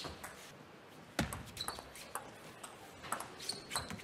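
Table tennis rally: a plastic ball clicking sharply off the rackets and the table in a quick back-and-forth, the loudest hit about a second in.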